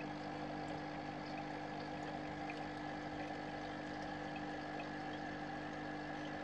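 Aquarium pump humming steadily on a few fixed tones, with water trickling and faint scattered ticks.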